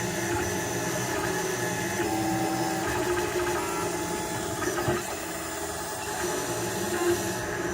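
Printrbot 3D printer running a print, its stepper motors whining in shifting tones as the head moves. A sharp click comes about five seconds in: the recurring click the owner cannot explain, which has grown worse along with layer shifts and failed extrusion.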